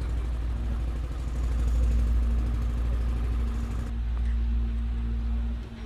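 A steady low engine-like rumble with a constant hum; about four seconds in, the hiss above it drops away abruptly.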